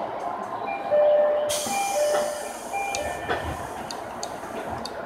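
Train door chime on a Japanese local train: a repeated two-note electronic tone. A burst of compressed-air hiss comes about a second and a half in, with a few light clicks afterwards.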